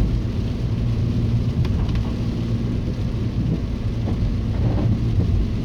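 Audi A2 1.4 TDI diesel car driving on a wet road: a steady low engine rumble with the hiss of tyres on water.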